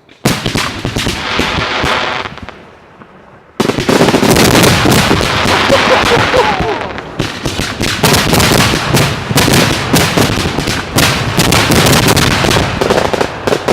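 Professional fireworks display close to the firing site: a rapid barrage of shell launches and bursts with crackle, starting suddenly, easing off around two seconds in, then resuming very loud and dense at about three and a half seconds.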